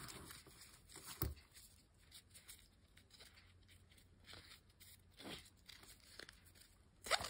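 Faint rustling and small scraping clicks of a black webbing strap being slid through its stainless-steel adjuster buckle to change its length, with louder scrapes about a second in, around five seconds in, and near the end.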